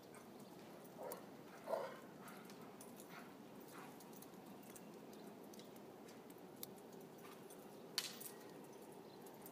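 Two short, faint dog yips about a second and two seconds in, the second louder, from dogs playing in snow, over a steady low hum. A sharp click near the end.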